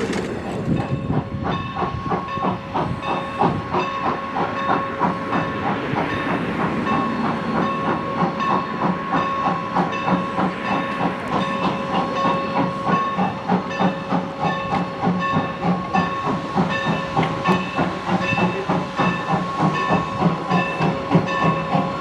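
Steam locomotive running, with a steady hiss of steam and a fast, even beat from the train.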